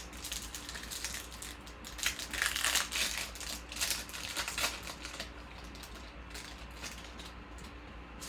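Stiff chrome trading cards being shuffled and sorted by hand, a rapid run of small clicks and rustles that is busiest from about two to five seconds in.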